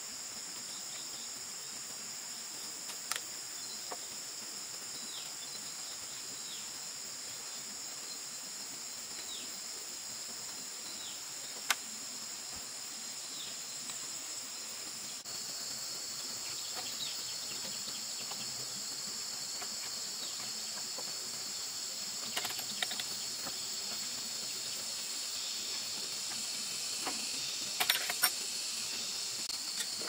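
Steady high-pitched drone of a forest insect chorus, shifting a little lower about halfway through. A few sharp knocks and taps of bamboo poles being handled break in, the loudest about twelve seconds in, with a small cluster near the end.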